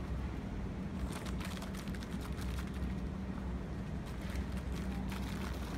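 Steady low mechanical hum with a constant pitch, under a faint even rush, with a few brief faint crackles about a second in and again near the end.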